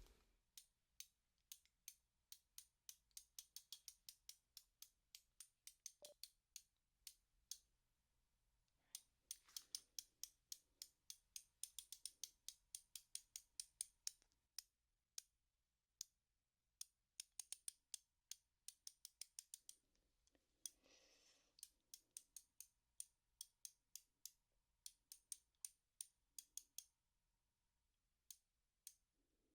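Socket wrench ratchet clicking in runs of sharp, quiet clicks, several a second, with short pauses between runs.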